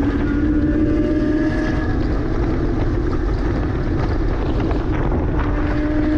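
Porsche Cayman S flat-six engine running at fairly steady revs under way, with tyre and wind noise.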